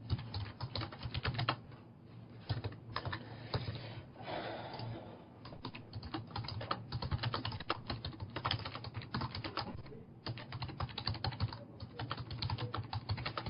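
Rapid typing on a computer keyboard, in runs of quick keystrokes broken by short pauses.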